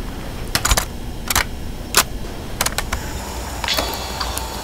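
A portable cassette player being handled: its plastic door and controls give about six sharp clicks, spread out with gaps, over a low steady background hum.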